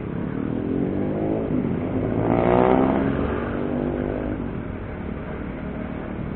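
A motor vehicle's engine passes close by in road traffic: its pitch rises and it grows loudest about two and a half seconds in, then falls in pitch and fades. Steady low road and wind rumble runs beneath.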